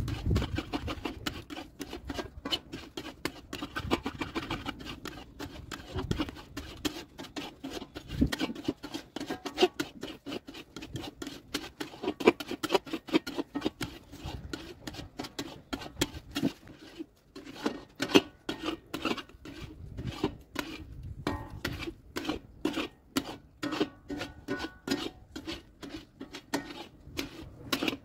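Long metal spatula scraping and stirring thick, reduced milk around a large iron kadai, in quick regular scraping strokes while khoya is being cooked down.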